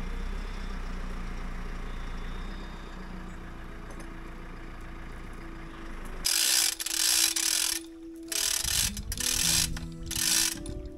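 Tractor-mounted crane working: a steady low rumble, then from about six seconds in, four loud noisy mechanical bursts over a steady hum as the winch pays out cable to lower the hook.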